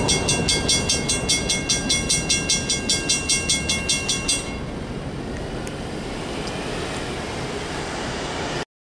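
Railroad grade-crossing bell ringing rapidly, about four or five strikes a second, then stopping about four and a half seconds in as the crossing clears. Afterwards, the steady hiss of cars driving over the crossing.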